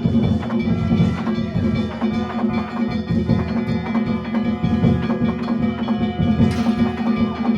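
Danjiri festival percussion (narimono): a taiko drum and clanging kane gongs struck in a rapid, continuous rhythm, the gongs' metallic ringing sustained over the drumming.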